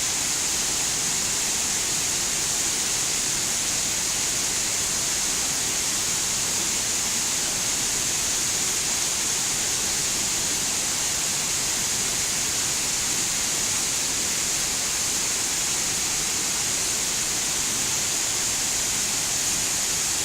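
Tamul waterfall's falling water rushing in a steady, even hiss with no breaks.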